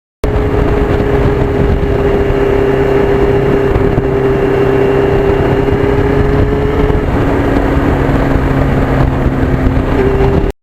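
Motorcycle engine, a 1991 Yamaha FZR1000 inline-four, running at a steady cruise while riding, under heavy rushing wind noise.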